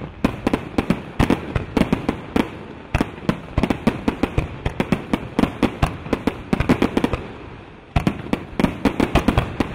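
Fireworks display: aerial shells bursting in quick succession, several sharp bangs a second over a continuous rumble of noise. The bangs thin out briefly about seven seconds in, then come thick again.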